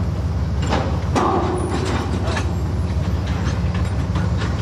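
Freight train rolling past: a steady low rumble with irregular clicks and clanks from the cars.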